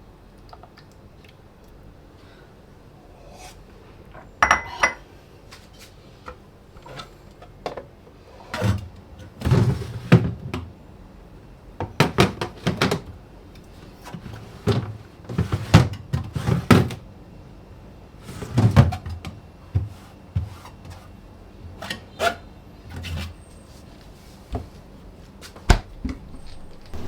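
Irregular knocks, thuds and clatter of objects being handled and set down in a small room, a couple of dozen separate hits with short gaps between them.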